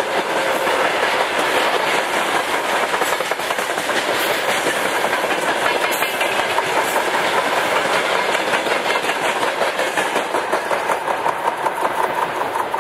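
Freight train of covered hopper wagons rolling past, the wheels clattering over rail joints in a steady, rhythmic clickety-clack. The last wagons go by near the end and the sound begins to fade.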